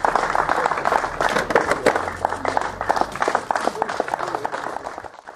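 Crowd applause: many hands clapping irregularly, with voices mixed in, dying away near the end.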